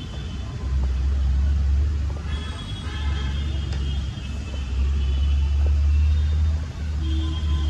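Low rumble of city street traffic, swelling and easing as vehicles pass, with faint voices in the background.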